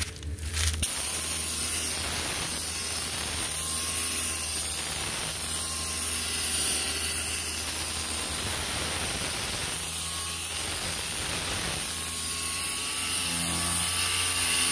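Pneumatic dual-action sander starting about a second in and running steadily with a strong hiss of exhaust air, sanding body filler and metal with 220-grit paper on an interface pad.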